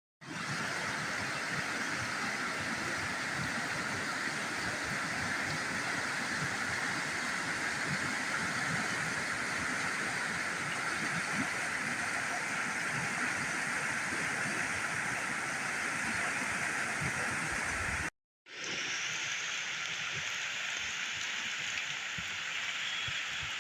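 Steady rain falling, with running stream water beneath it. The sound drops out for a moment about 18 seconds in, then resumes.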